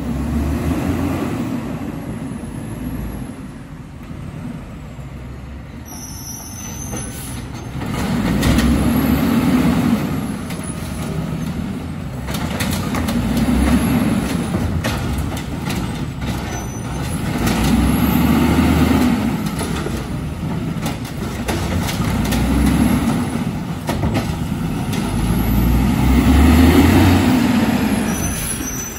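Diesel engine of an automated side-loader garbage truck, revving up and easing off about every four to five seconds as it works slowly along the street, with short air-brake hisses in between.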